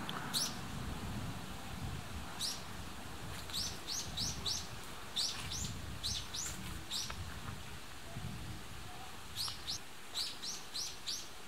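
Small bird calling with short, sharp chirps, each dropping in pitch, given singly and in quick runs of three or four, over a low rumble.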